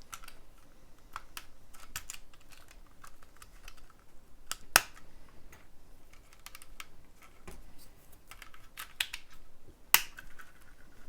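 Plastic Lego bricks clicking and tapping as pieces are handled and pressed back on, with two sharper snaps about five seconds in and near the end.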